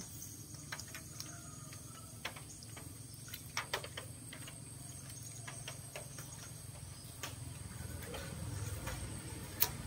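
Faint background noise with a scattering of short, light clicks and ticks at irregular intervals.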